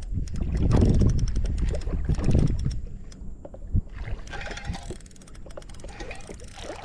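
Water sloshing around a kayak with wind rumbling on the microphone, loudest in the first two and a half seconds, then quieter, with one sharp knock a little past the middle.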